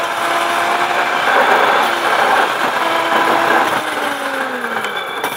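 Car engine running steadily under road and wind noise, heard from inside the car; about four seconds in the engine note falls in pitch as the revs drop.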